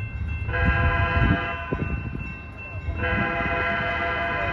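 Diesel locomotive's air horn sounding over the low rumble of the approaching train: one blast of about a second starting half a second in, then a second blast starting about three seconds in and holding on.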